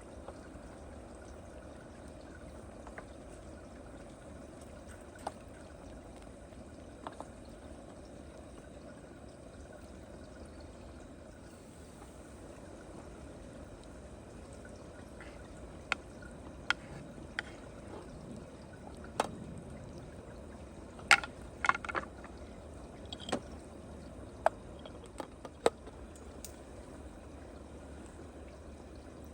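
Steady rush of water, with scattered sharp taps that come more often in the second half, the loudest about two-thirds of the way in.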